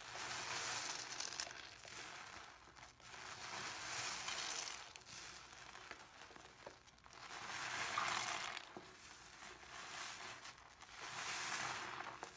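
Soapy wet sponge being squeezed again and again: a crackling, fizzing squish that swells and fades four times, about every three and a half seconds.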